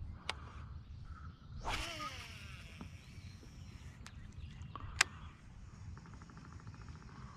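A cast with a fishing rod and reel: a sudden hiss of line running off the reel about a second and a half in, with a falling whine as the spool slows, then a few sharp clicks of the reel and a quick, even ticking near the end, over a steady low rumble.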